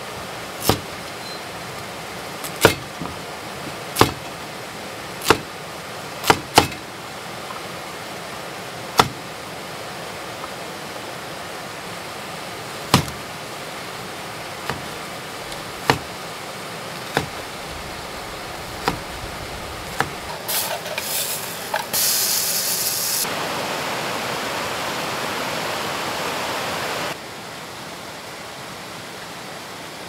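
A cleaver chopping carrot and green bell pepper on a wooden cutting board: about a dozen sharp single knocks, one every second or two, over the steady rush of a river. Near the end a loud steady hiss lasts about five seconds and cuts off suddenly.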